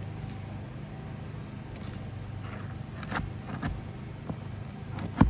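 Metal roofing snake worked under asphalt shingles to pull nails: scraping with a few sharp metallic clicks and knocks, the loudest near the end, over a steady low hum.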